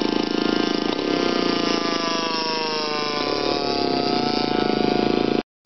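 Engine of a radio-controlled model airplane running in flight. Its note glides down in pitch over a couple of seconds from about two seconds in, then holds steady, and the sound cuts off abruptly just before the end.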